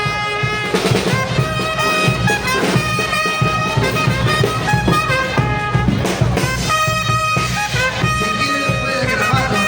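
Brass band playing: horns hold long notes with short breaks between phrases, over a steady drum beat.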